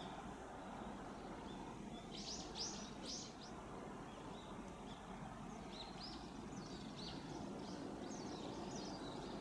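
Small birds chirping: a quick run of three high chirps about two seconds in, then scattered fainter chirps, over steady outdoor background noise.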